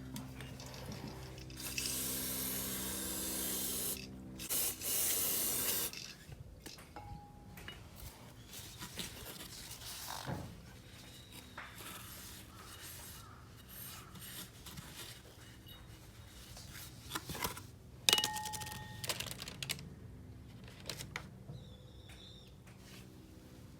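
Aerosol spray can hissing in two bursts of about two seconds each, followed by scraping, rubbing and a few sharp clicks of hands and tools at work.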